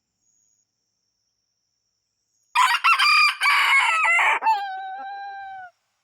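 A rooster crows once, loudly, starting about two and a half seconds in. The crow ends in a long held note that sinks a little and then stops.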